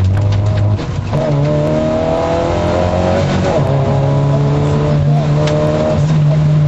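MG F rally car's engine heard from inside the cabin at speed. The revs drop about a second in, then the engine pulls at fairly steady revs, with a brief dip and rise in pitch around the middle.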